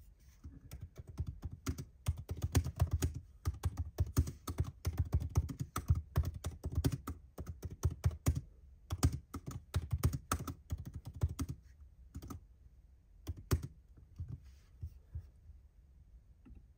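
Typing on a MacBook Pro laptop keyboard: a quick, dense run of key clicks for about eleven seconds, then a few scattered keystrokes that thin out toward the end.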